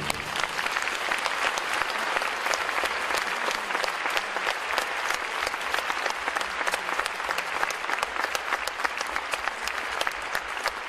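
Theatre audience applauding steadily, a dense patter of many hands clapping, right after the orchestra's final chord.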